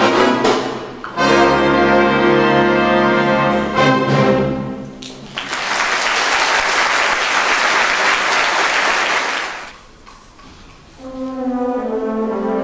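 Symphony orchestra with prominent brass ending a piece on a long held chord, followed by about four seconds of audience applause. A new piece starts near the end.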